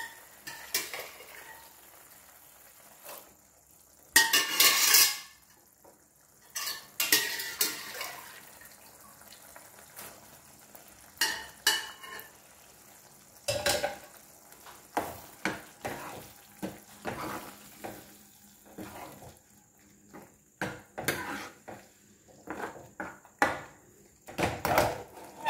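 Metal utensils scraping and clattering against a non-stick pan as boiled black chickpeas go into the masala, then a steel ladle stirring, with irregular knocks and scrapes against the pan.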